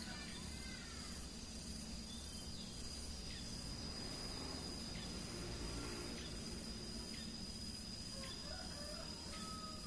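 Rural station ambience: a steady high-pitched insect drone, scattered short bird chirps and a low steady rumble; a rooster crows near the end.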